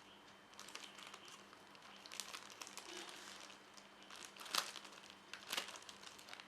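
Package wrapping crinkling and crackling as it is handled and opened by hand, with two sharper snaps or tears about four and a half and five and a half seconds in.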